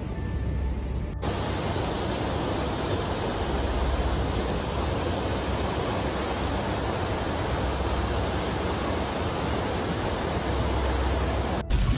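Steady rushing noise of torrential water, with abrupt changes about a second in and again near the end.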